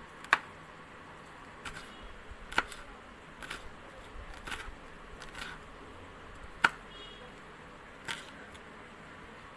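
Kitchen knife slicing green chillies on a cutting board: sharp, irregular taps of the blade on the board, about eight in all, three louder than the rest.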